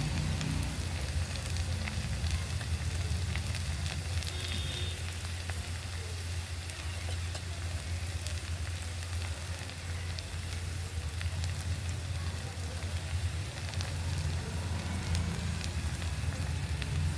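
Food frying in a pan: a steady sizzle with scattered small crackles, over a steady low hum.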